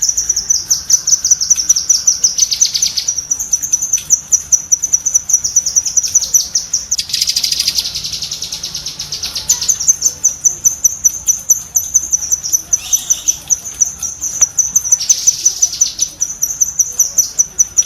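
Cucak kinoi (a leafbird) singing rapid-fire 'tembakan' chatter: a fast, unbroken string of sharp high notes, several a second, thickening into denser rattling bursts about seven seconds in and again near the end.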